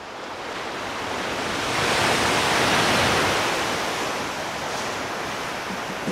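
Sea surf: a wave rushes in, swelling to its loudest about two seconds in, then slowly falls away.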